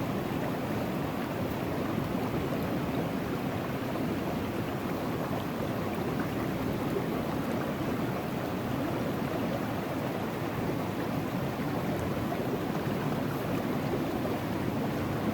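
River water rushing steadily past a gold sluice box, an even rush with no breaks.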